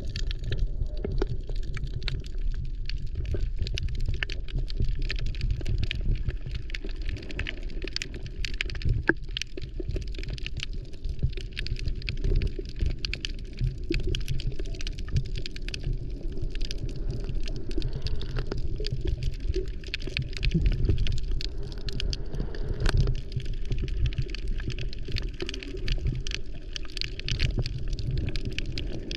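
Underwater sound picked up by a submerged camera: a steady low rumble of moving water with a constant fine crackle of small clicks.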